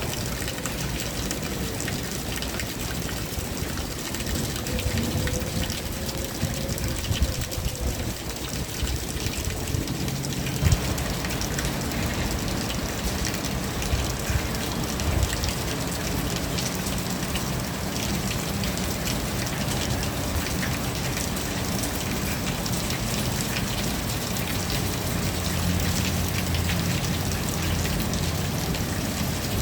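Steady rain falling, with many separate drops ticking on nearby surfaces. A low hum sits underneath from about a third of the way in.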